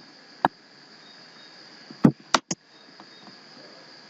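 A few sharp computer mouse and keyboard clicks: one about half a second in, then a quick run of three around the middle. Behind them is a steady electrical hiss with a faint high-pitched whine.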